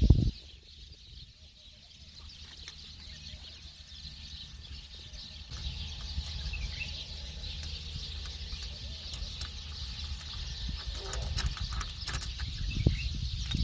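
Outdoor background of wind rumbling on the microphone under a steady high hiss, with a quick cluster of light metallic clicks about eleven seconds in as a T-handle spark plug wrench works on the Land Cruiser's spark plugs. A short thump comes at the very start.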